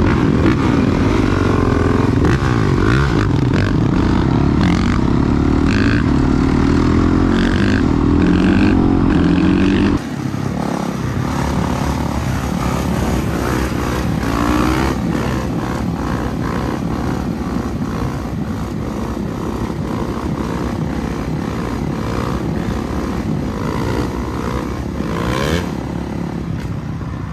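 Dirt bike engines riding on pavement. For about the first ten seconds one engine climbs in pitch again and again as it accelerates and shifts up through the gears; then the sound changes abruptly to a quieter, rougher engine note that holds steady.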